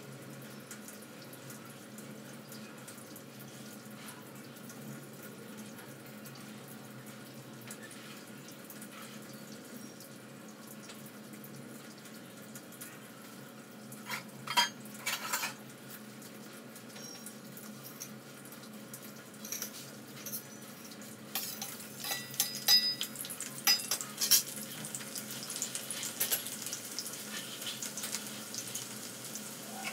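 Gas burner hissing steadily under an iron kadai of heating oil, with a few clinks about halfway through. From about two-thirds of the way in, chopped garlic sizzles in the hot oil, with clinks of utensils.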